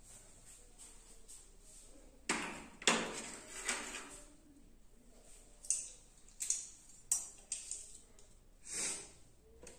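Barber's tools being handled: a series of separate light clinks and taps, about eight in all at irregular intervals, like a steel lather bowl, brush and razor being set down and picked up, with a slightly longer scrape near the end.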